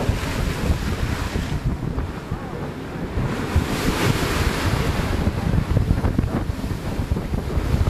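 Wind buffeting the microphone on a ship's deck, over a steady wash of sea noise that swells for a couple of seconds midway.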